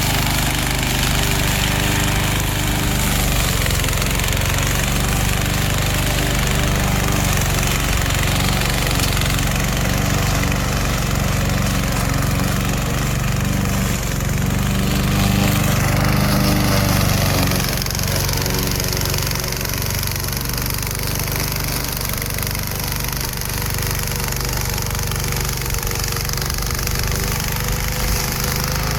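Remote-controlled lawn mower running, a steady mechanical drone with a pitched hum under it, dropping slightly in level about two-thirds of the way through.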